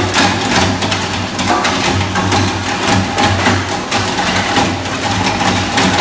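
Shredder machine running: a steady motor hum under a dense, irregular crackle of knocks as material is broken up.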